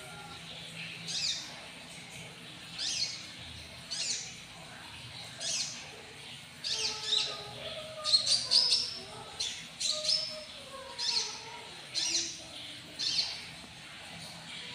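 Purple-throated sunbird (kolibri ninja) calling: a string of short, sharp, high chirps about once a second, coming faster and loudest in a cluster around the middle. Faint lower whistled glides run beneath.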